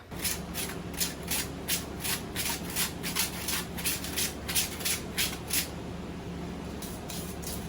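Rough sandpaper rubbed back and forth over a carved wooden spoon in quick scratchy strokes, about three to four a second, growing fainter after about six seconds, over a low steady hum.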